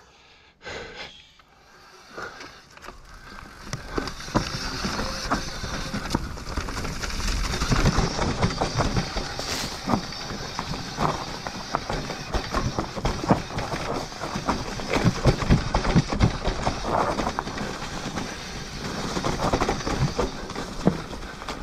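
Mountain bike riding a dirt trail: a steady rush of tyre and riding noise, full of rattles and knocks from the bike going over rough ground. It starts quietly and builds to full speed about four seconds in.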